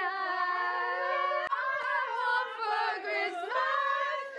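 A woman singing long held notes, a song carrying over from the lyrics just before.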